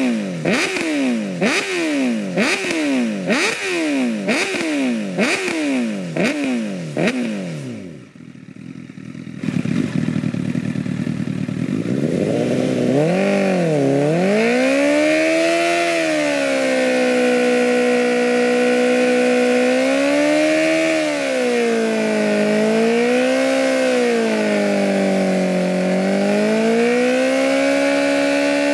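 Honda CBR1000RR inline-four through an SC-Project oval muffler, revved in quick repeated blips, about one every half second, for the first seven seconds. After a short drop it is held at high revs, the pitch swelling and sagging, as in a burnout.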